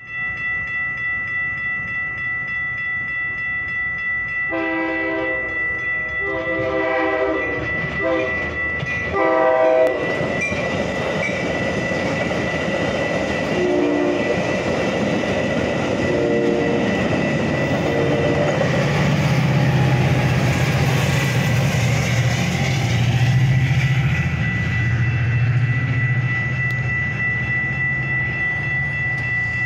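Railroad crossing bell ringing steadily while a Metra commuter train sounds its horn in four blasts, long, long, short, long: the standard grade-crossing signal. The train then passes with a rumble and wheel clatter over the rails, and a low drone comes through from about twenty seconds in.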